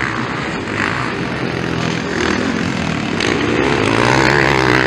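Dirt bike engines revving on a motocross track, the pitch rising and falling with the throttle, growing louder over the last couple of seconds as the bikes come closer.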